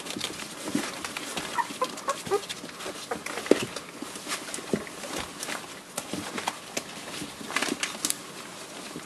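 Newborn Kishu puppies squirming and feeding under their mother on newspaper: the paper crackles and rustles, with a few short high squeaks from the puppies about two seconds in.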